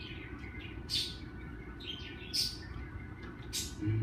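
Pet parakeet chirping: a string of short, sharp, high calls about a second apart, three of them louder than the rest, over a steady low hum.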